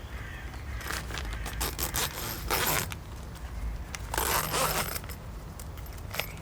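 A zipper being pulled open in several short rasping strokes, the longest two about two and a half and four seconds in.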